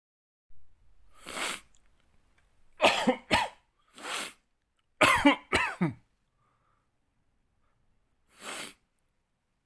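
A man with a cold coughing: a pair of harsh coughs about three seconds in and a louder pair about five seconds in, with quieter single sounds before, between and after.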